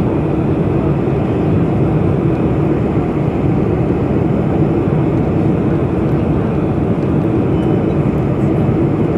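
Steady cabin noise of a Boeing 747-400 on final approach, heard from a window seat over the wing: an even rush of engine and airflow noise with the flaps fully extended.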